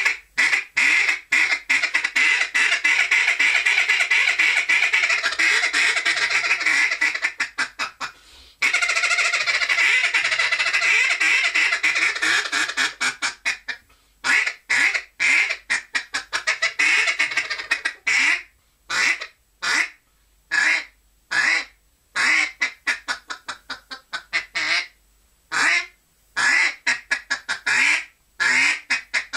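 Cadence duck call blown by mouth, imitating a duck. For the first half it is a long, fast run of closely packed notes, broken once about eight and a half seconds in. From about fourteen seconds in it gives separate quacks in short series.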